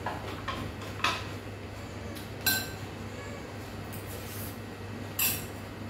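A spoon clinking against a rice bowl and plates during a meal: three sharper clinks about one, two and a half, and five seconds in, with a few lighter taps between them.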